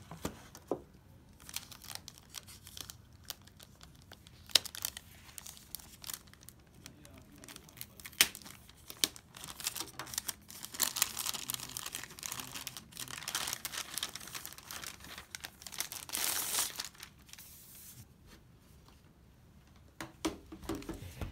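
Thin plastic protective bag crinkling and rustling as a laptop is handled and slid out of it, with a couple of sharp taps about four and eight seconds in. The crinkling is loudest from about ten to seventeen seconds in.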